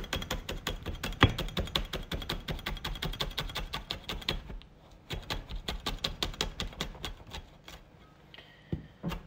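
Chef's knife slicing a green hot chili pepper on a wooden cutting board: a fast, even run of chopping taps, several a second, that pauses briefly about halfway through and tails off near the end.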